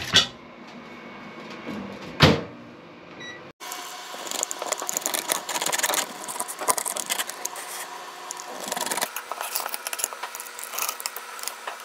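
A wheel pizza cutter rolling through a crisp-baked homemade pizza crust on a plate, giving a run of dense crackling crunches and scrapes. Before it, a single sharp knock about two seconds in.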